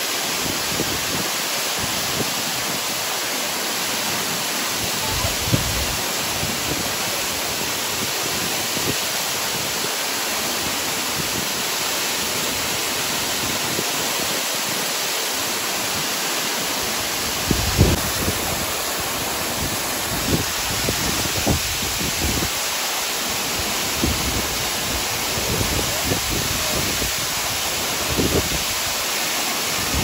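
Waterfall in full monsoon flow, a steady rush of falling water heard from close by, with a few short low buffets in the second half.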